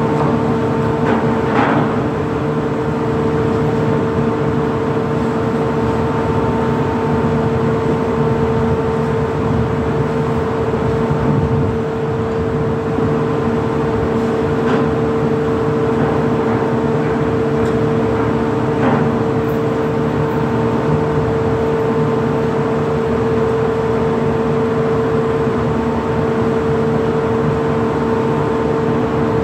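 Steady drone of heavy machinery running at a fixed pitch, with a few light knocks or clinks about a second and a half in, near the middle, and about two-thirds of the way through.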